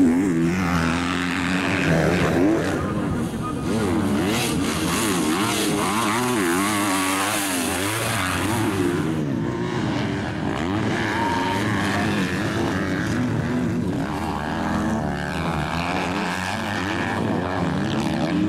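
Several motocross bikes racing, their engines revving up and down in quick, overlapping pitch swings as the riders open and close the throttle.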